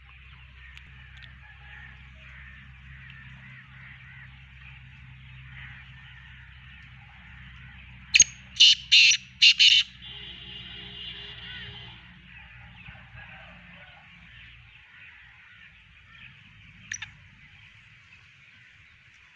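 Black francolin calling: a loud, harsh call of four quick notes about eight seconds in, with one short sharp note near the end, over faint steady background chatter.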